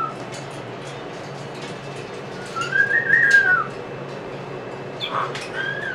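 Moluccan cockatoo whistling: one clear whistle that rises and falls about three seconds in, then a shorter rising whistle near the end. Light clicks of claws and beak on the wire cage sound throughout.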